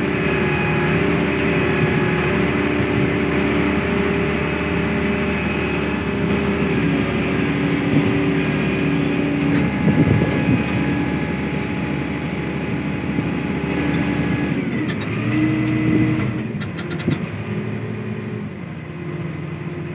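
Ship's deck crane machinery running steadily under load: a continuous engine and hydraulic whine and hum whose tones shift and dip about fifteen seconds in as the control levers are moved. A faint high chirp repeats about once a second through the first half.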